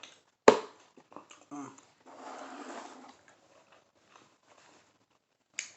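Close-up eating sounds: a sharp clack about half a second in, a short hum, then about a second of noisy mouth sound as she eats the birria taco.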